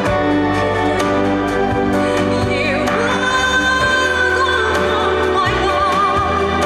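A woman singing a ballad-style song live over instrumental accompaniment with a steady beat. She holds long notes in the second half, the last one with a wide vibrato.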